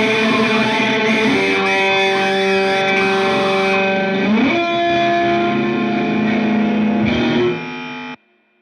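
Music: distorted electric guitar through effects, ringing out held notes, with a rising slide about four seconds in. It drops in level near the end and then cuts off suddenly.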